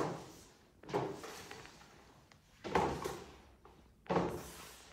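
Four sudden knocks, one at the start and the others about a second, nearly three seconds and about four seconds in, each dying away over about a second.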